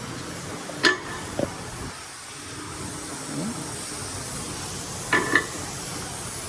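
A few sharp metallic clinks of hand tools, with a pair close together near the end, over a steady background hiss.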